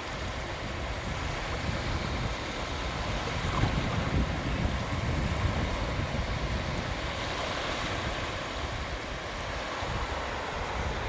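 Sea waves breaking and washing up onto the beach, swelling louder about four seconds in, with wind buffeting the microphone as a rough low rumble.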